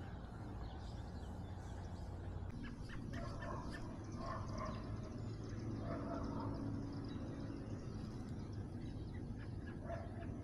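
Faint bird calls: a string of short pitched notes in the middle and one more near the end, over a steady low rumble.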